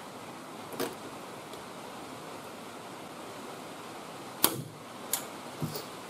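Hand pop-rivet gun setting a steel pop rivet in a cab corner patch panel. There is a small click about a second in, then a sharp snap about four and a half seconds in as the mandrel breaks off, which means the rivet is fully set. A few lighter clicks follow, over a steady hiss.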